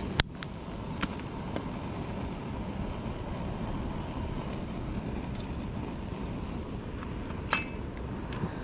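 Camping stove heating a pot of water in the wind: a steady rushing, with a sharp click just after the start, a few fainter clicks, and a short metal clink about seven and a half seconds in.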